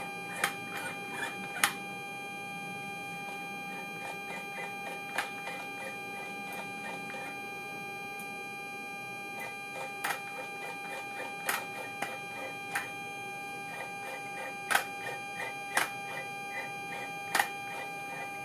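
The servo motor of a TRT vertical-tape radar altimeter drives its tape up the scale, a mechanical whirring with fast faint ticks, while a precision potentiometer is turned to feed it. A steady hum with overtones, in step with the indicator's 26 V 400 Hz supply, runs underneath. Sharp clicks sound about a dozen times.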